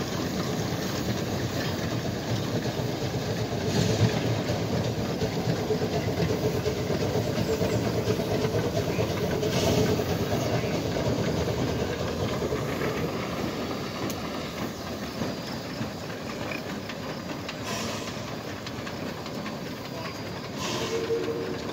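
Geared Shay steam locomotives moving slowly along the track, with steam hissing and the wheels running over the rails, and a few sharp clanks along the way. The sound gets somewhat quieter in the second half.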